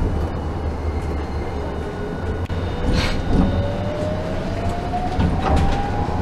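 Hiroshima tram's electric traction drive heard from the driver's cab as the tram picks up speed: a thin whine that rises steadily in pitch over the steady rumble of the wheels on the rails, with a few sharp clacks over rail joints.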